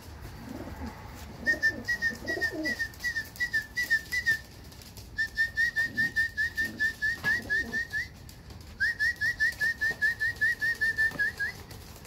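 Three runs of rapid whistled chirps, about five a second, calling racing homer pigeons in to their keeper. Pigeons coo softly underneath in the first few seconds.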